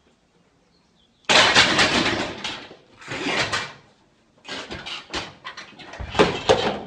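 A loaded barbell tipping off a bench press, its weight plates sliding off one end and crashing to the floor. After a quiet first second there is a loud rush of noise, then a run of knocks and bangs, the heaviest near the end.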